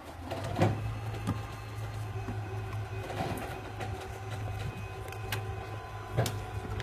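A vehicle engine running steadily with a low hum, and a few sharp knocks over it, the loudest about half a second in.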